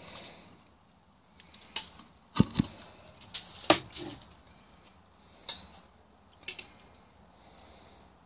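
About eight sharp metallic clinks and clanks of stainless steel cookware: a pot lid, mixing bowl and cooking utensil knocking against one another, the loudest about two and a half and nearly four seconds in.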